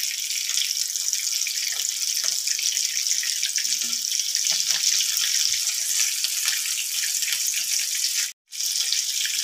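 Potato kababs shallow-frying in hot oil in a pan: a steady sizzling hiss with faint crackles, cutting out briefly near the end.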